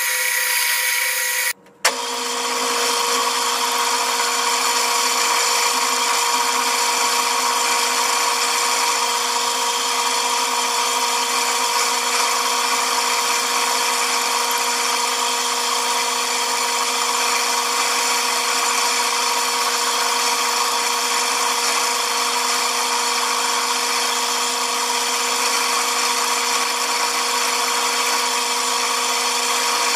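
Small metal lathe running with a steady whine, turning a round aluminium workpiece while a hand-held tool is pressed against it; the sound cuts out briefly about a second and a half in.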